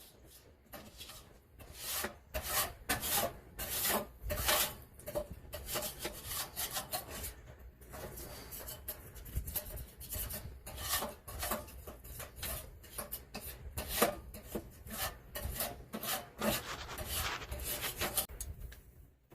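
Irregular rubbing and scraping, several strokes a second, from hands working with or sorting through tools.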